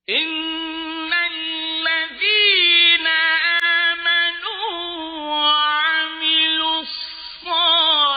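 A man's voice chanting Quran recitation in the slow, melodic mujawwad style: long held notes with ornamented, wavering pitch turns. It begins suddenly out of silence.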